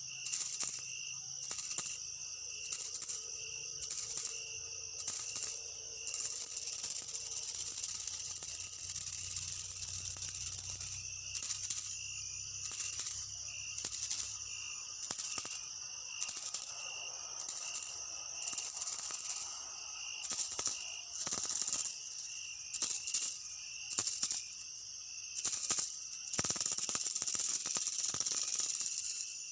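Insects calling in a steady high-pitched chorus, with a pulsing trill that repeats about once a second.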